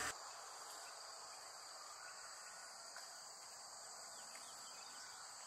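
Faint, steady chorus of crickets.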